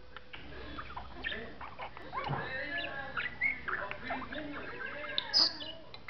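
Budgerigar chattering and warbling in a fast, speech-like stream of quick chirps, the budgie's attempts at talking, with one loud, sharp high chirp near the end.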